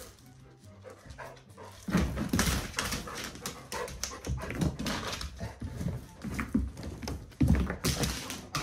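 Young golden retriever whimpering and panting in irregular bouts, starting about two seconds in.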